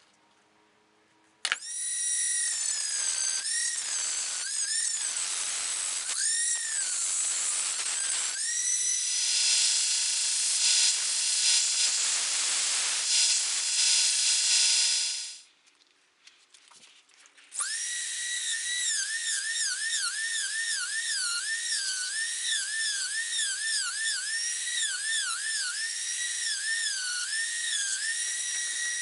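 High-speed rotary tool whining as it grinds steel, its pitch sagging each time the wheel bites into the blade and recovering as it lifts off. About a third of the way in the sound turns to a louder, rougher grinding of the steel blade against a sanding belt, which stops about halfway through; after a short pause the rotary tool starts again and cuts with quick, repeated dips in pitch.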